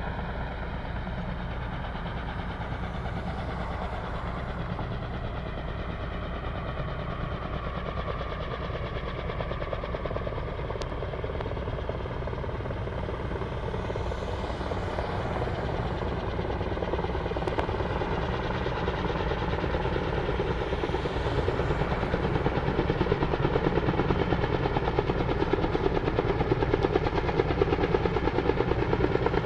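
Helicopter rotor and engine, a fast steady beating chop that grows louder about two-thirds of the way through.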